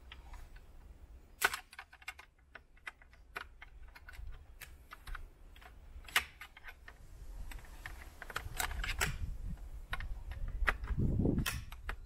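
Irregular plastic clicks and rattles from a Toyota Prado's dashboard fascia being handled while its air vents are pushed out of their retaining clips. Two sharper snaps come about a second and a half in and about six seconds in, and a dull low bump follows near the end.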